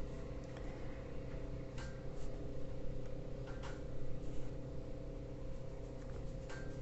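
Steady low electrical hum of room tone, with a few faint clicks.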